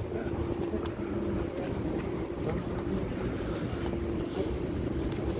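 Wind rumbling on the microphone as it is carried outdoors, with a faint steady hum that comes and goes underneath.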